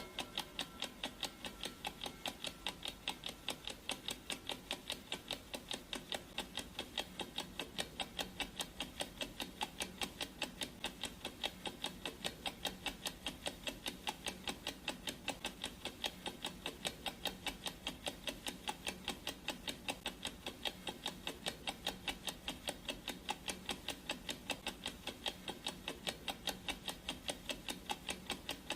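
Ticking clock sound effect of a countdown timer: steady, evenly spaced ticks.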